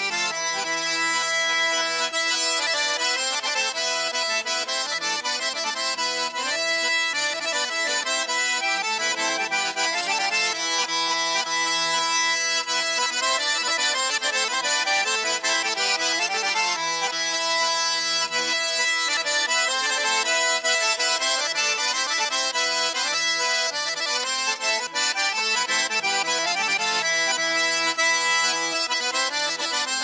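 Instrumental music with held notes and chords and no singing.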